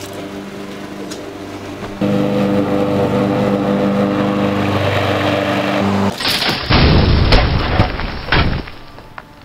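Push lawnmower's small gasoline engine running steadily, louder from about two seconds in. About six seconds in it gives way to a loud explosion, with a second bang a couple of seconds later, then dies away.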